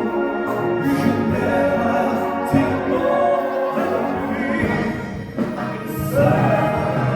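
A live wind orchestra accompanying singers and a choir in a slow, full-voiced song.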